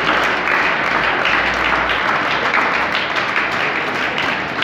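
An audience of schoolchildren applauding steadily, many hands clapping at once.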